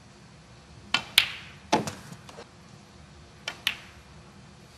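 Snooker balls clicking: sharp knocks of the cue tip on the cue ball and the balls striking each other as a red is potted, two clicks about a second in, a small cluster a little later, and two more near the end.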